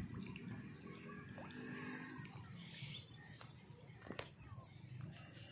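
Faint outdoor ambience with a low rumble and scattered faint bird chirps, broken by one sharp click about four seconds in.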